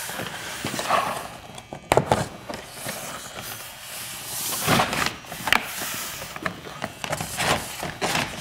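Vinyl siding panel being slid in under a window and pressed against the wall by hand: irregular plastic clicks and knocks with scraping and rustling between them.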